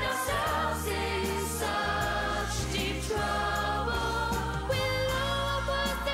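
Music: a pop song with several voices singing over a backing track and a steady bass line.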